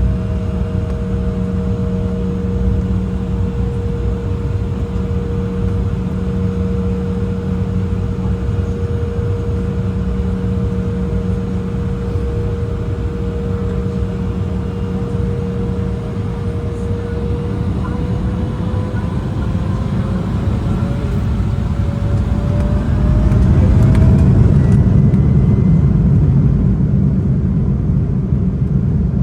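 Twin GE CF34-8E turbofan engines of an Embraer E175, heard inside the cabin: a steady engine whine, which a little past halfway rises in pitch as the engines spool up toward takeoff thrust. The engine noise then grows louder, with a heavy low rumble building near the end.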